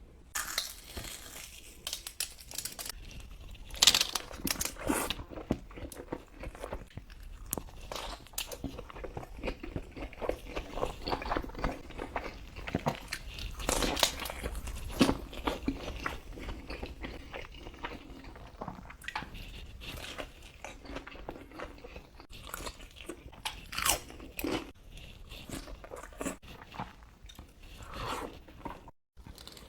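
Close-miked eating: crunchy bites and chewing, with the sharpest crunches about 4, 14 and 24 seconds in.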